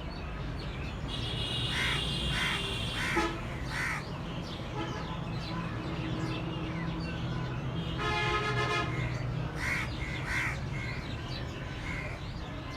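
Outdoor ambience with birds calling in short repeated notes over a steady low hum. About eight seconds in there is a brief, rich-toned call or honk.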